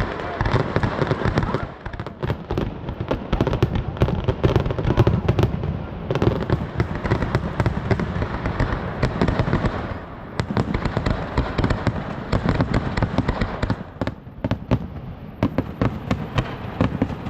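Fireworks display going off in a dense run of bangs and crackles, one on top of the next, with brief lulls about two seconds in, near the middle and a few seconds before the end.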